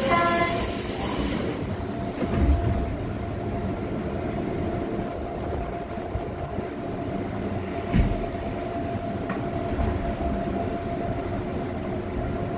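Inside a retrofitted resistor-control Korean Line 1 electric train car: a short hiss and brief tone as the doors close, a thud about two seconds in, then the car's steady hum with a held tone as the train starts to move off, with another knock near the middle.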